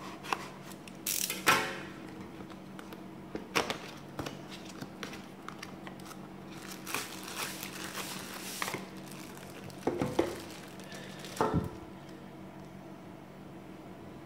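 A power strip's box being opened and unpacked by hand: intermittent rustling and crinkling of packaging with a few light knocks, in separate bursts.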